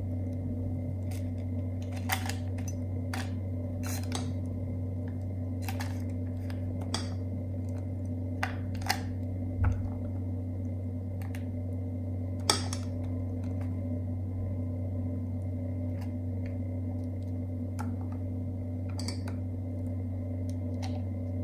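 Scattered light clinks and taps of stainless-steel tumblers and a spoon against a steel bowl and plate as a creamy mixture is spooned into packets, over a steady low hum.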